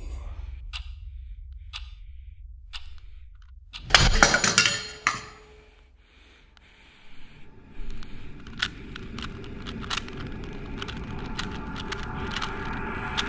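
Film sound design: a tick about once a second over a low rumble, a sudden loud hit about four seconds in, then the rapid plastic clicking of a Rubik's cube being twisted over a rising drone.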